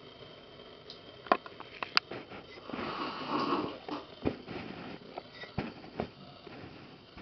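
A person sipping hot tea from a mug: a drawn-out breathy slurp about three seconds in, with several short sharp clicks and smacks before and after it.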